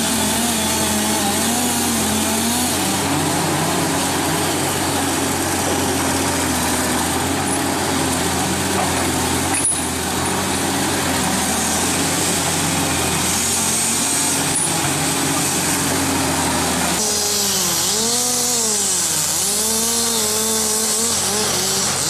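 Chainsaw running at high revs while cross-cutting a large log, its pitch sagging slightly under load. About three-quarters of the way through the sound changes, and the pitch dips and climbs back several times as the saw bogs in the wood and recovers.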